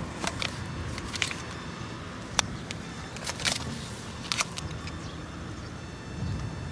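Metal spoon clinking and scraping against a small stainless-steel camp cup while thick curry is scooped out, a run of sharp, irregular clinks that stops after about four and a half seconds.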